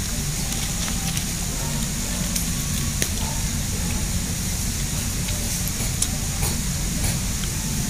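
Moringa-leaf fritters frying in hot oil in a pan over a wood fire: a steady sizzle with scattered small clicks and pops, over a steady low rumble.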